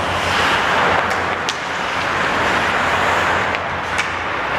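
Ice hockey game sounds in an indoor arena: a steady wash of skate and rink noise with about four sharp clacks of sticks and puck.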